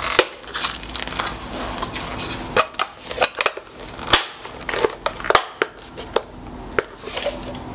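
Hard plastic cheek-rest cover on a Tokyo Marui FA-MAS airsoft rifle being handled to swap it between sides: an irregular run of sharp plastic clicks and knocks with scraping in between, loudest about four and five and a half seconds in.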